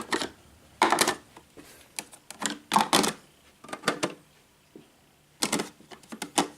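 Plastic parts of a 1986 Black & Decker coffee maker clicking and clattering as they are pulled out and handled: a string of sharp knocks, some in quick clusters, with short quiet gaps between.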